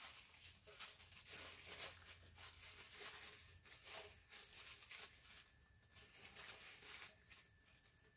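Thin white wrapping being crinkled and pulled open by hand, a dense run of rustles and small tearing sounds that thins out near the end.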